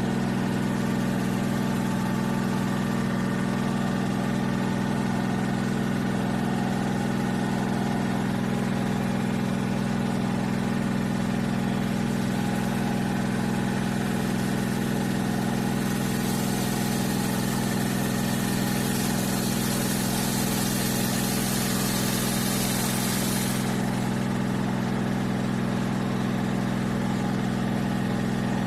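Telefunken washing machine (W-8-1400-A-W, inverter motor) running with a steady low hum. About halfway through, a hiss joins the hum for several seconds.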